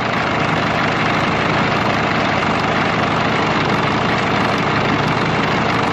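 Cummins diesel engine of an antique Brockway truck idling steadily, with a clattery sound from its Spicer four-speed Air-Matic transmission, which the owner hopes is only the gears.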